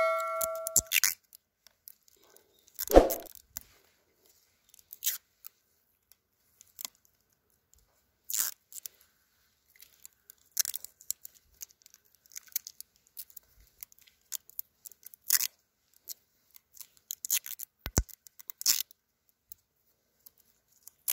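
Grafting tape pulled off its roll and stretched around a walnut graft to bind it tightly: short crackling, tearing strokes at irregular intervals. A chime rings and fades out in the first second.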